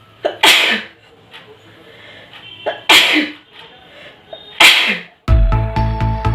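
A person sneezing three times, each a sharp burst that trails off, the first two about two and a half seconds apart and the third close after. A little after five seconds in, loud music with a heavy beat cuts in.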